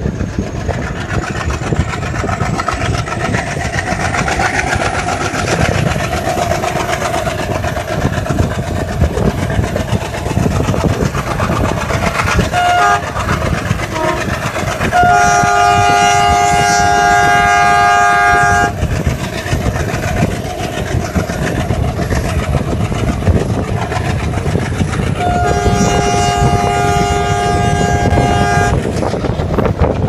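Express train running round a curve, with steady wheel-and-rail rumble and clatter from the coaches. The diesel locomotive ahead sounds its multi-tone horn: a few short toots, then a long blast about halfway through, and another near the end.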